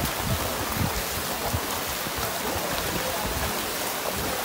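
Steady rain and sloshing floodwater, with splashes as feet wade through the shallow water and a fishing net is dragged through it.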